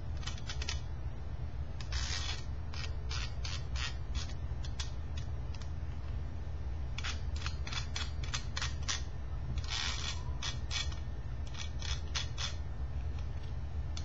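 Small precision screwdriver turning screws out of a laptop heat sink and fan assembly: bursts of quick clicks and scrapes as the screws turn and the metal parts shift, over a steady low hum.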